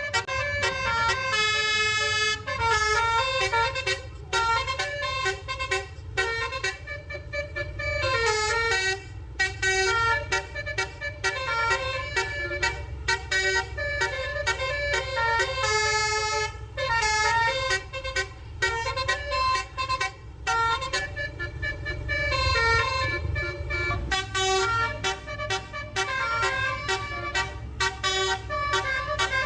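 Twelve-trumpet telolet horn, the melody horn of Indonesian buses, driven by a DAV sequencer module, playing a fast run of changing notes with some sliding notes. A steady low rumble runs underneath.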